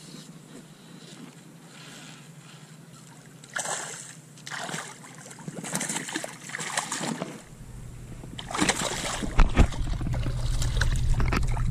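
Shallow water splashing in short, irregular bursts as a hooked bonefish is fought and brought in, starting about three seconds in. A low rumble sits under the splashes from about halfway.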